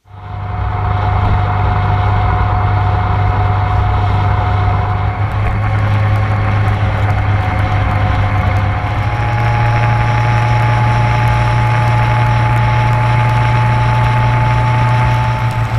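Motorcycle riding at a steady cruising speed: a steady engine drone with a thin whine over road and wind noise. The pitch steps slightly higher about nine seconds in.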